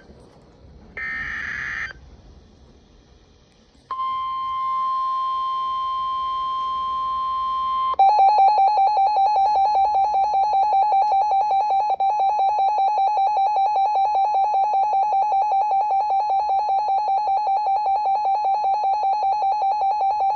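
Emergency Alert System alert tones: a short screechy data burst about a second in, then a steady single alert tone for about four seconds. After that comes a louder, slightly lower, rapidly pulsing alert tone that runs on until the warning message begins.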